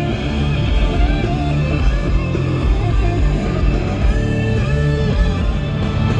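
Rock music with guitar playing through a car stereo, the factory Monsoon audio system with CD player.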